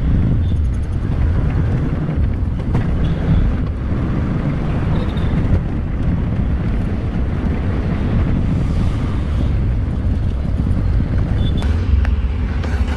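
Auto-rickshaw's small engine running with a steady low rumble and road noise, heard from inside the open passenger cabin while it drives through traffic.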